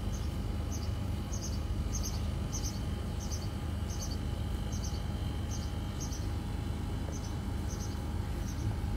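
Short, high chirps repeat about every half second over a steady low hum.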